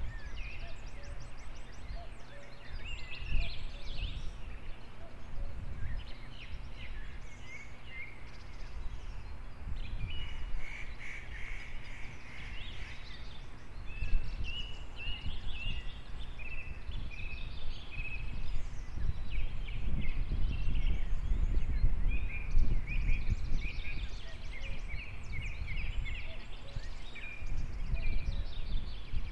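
Ravens calling repeatedly in short, rough notes, over a steady low rumble of background noise.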